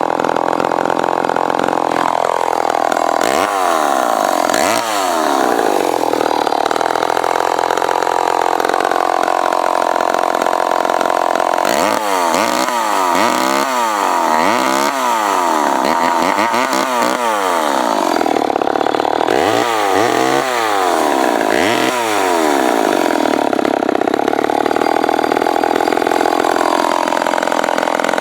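Remington SL9 two-stroke chainsaw engine running, held at a steady fast speed and repeatedly blipped: clusters of quick revs up and back down, between steadier stretches where the engine speed settles at a slightly higher or lower note.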